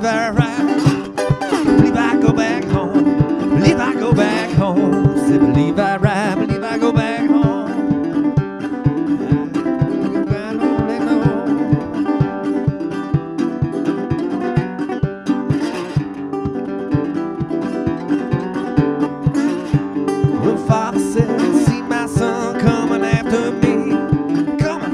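Acoustic guitar played blues-style with a brass slide, plucked notes with sliding, wavering pitches.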